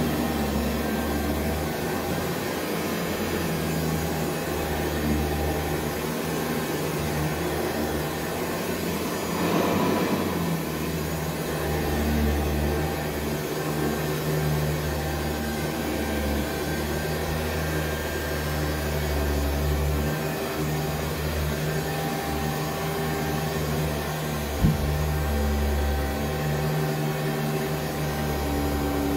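Upright vacuum cleaner running steadily on carpet, its motor hum swelling and easing a little as it is pushed back and forth. It is powered from an APC battery backup that has been unplugged from the wall and is running on battery; the unit's light is blinking red, a sign it is not happy with the load. A single sharp knock about 25 seconds in.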